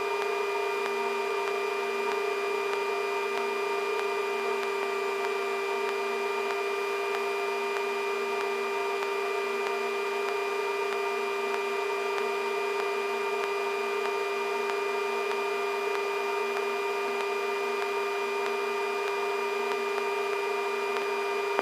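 Sikorsky S-64 Skycrane helicopter's twin turboshaft engines and rotor gearbox at lift-off power, heard inside the cockpit as a steady whine of several constant tones.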